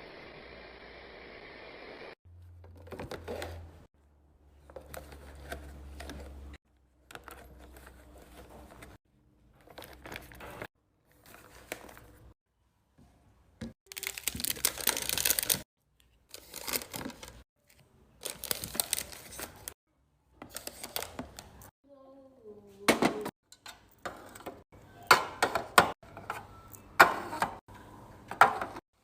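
Fridge restocking handling sounds in quick edited cuts: plastic packaging crinkling and tearing, with sharp clicks and knocks of containers and lids, each clip cutting off abruptly. The clicks come thicker and louder over the last few seconds.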